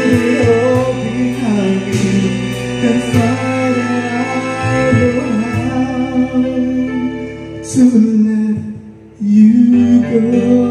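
Karaoke song playing through a Platinum Kapitan 2 DVD karaoke player: backing music with a singing voice over it. The music drops away briefly near the end, then comes back in loud.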